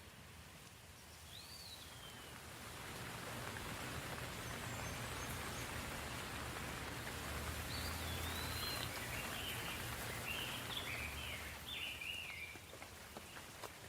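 Steady soft rain that swells after a couple of seconds and eases near the end, with a low rumble underneath. A bird chirps once about a second in, then gives a run of short chirps in the second half.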